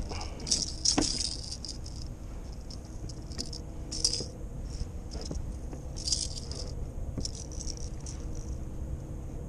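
Light rattling and jingling in several short bouts, over a steady low wind rumble.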